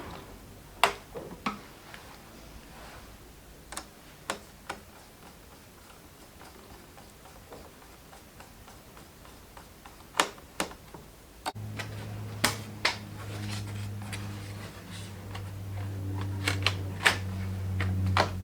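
Scattered sharp clicks and taps of small tools being handled on a workbench. About eleven seconds in, a steady low electrical hum with a faint buzz starts suddenly and carries on, growing a little louder near the end.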